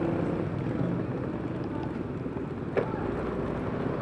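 Yamaha Mio i 125 scooter running on the road, a steady low rumble with wind buffeting the microphone. A single brief chirp cuts through a little before three seconds in.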